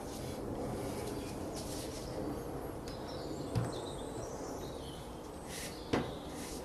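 Outdoor background noise with birds chirping, broken by two short knocks, one about three and a half seconds in and a louder one near the end.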